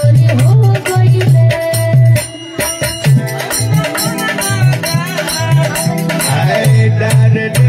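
Bhojpuri rustic wedding song (vivah geet) sung live over a steady drum beat, with hand clapping keeping time.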